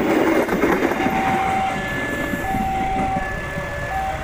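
Passenger train coaches rolling past at close range, their wheels rumbling on the rails and fading as the end of the train moves away. Steady high tones sound on and off over the rumble.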